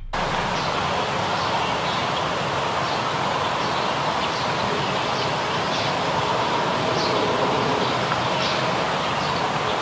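Outdoor nature ambience: a steady hiss of background noise with faint, scattered bird chirps.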